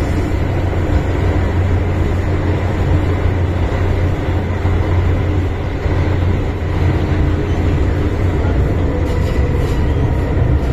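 MTR Island Line M-Train, a Metro-Cammell electric multiple unit, running underground, heard from inside the carriage: a steady heavy low rumble of the running train, with a faint steady high tone above it.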